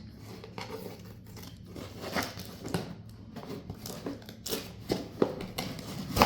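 Parcel packaging being opened by hand: a run of short crinkles, rips and crackles, with one sharp loud snap near the end.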